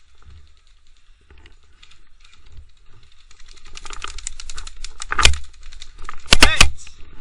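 Airsoft guns firing, a fast run of rapid clicks a little over three seconds in, then a very loud close knock about five seconds in and three more in quick succession near the end.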